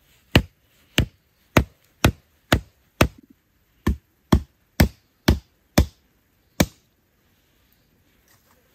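Machete chopping wood: about a dozen sharp strikes, roughly two a second, stopping after about six and a half seconds.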